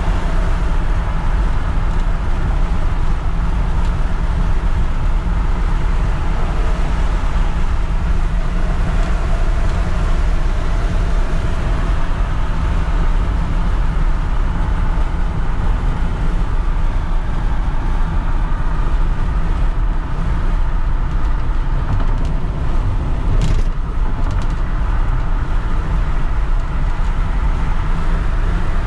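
Steady in-cab drive noise of a 2001 Ford F350 with a 6.8-litre V10 gas engine cruising at highway speed: a heavy low rumble of engine and road. There is a single short click about three-quarters of the way through.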